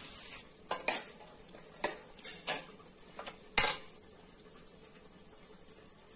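A steel ladle clinking and scraping against a kadai as mutton bone curry is stirred: about seven short, sharp knocks over the first four seconds, after a faint sizzle at the start.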